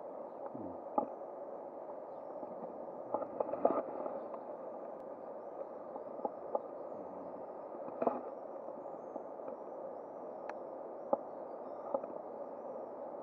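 Steady rush of a small river's flowing water, with scattered sharp clicks and rustles from hands handling a fishing fly and line close to the microphone.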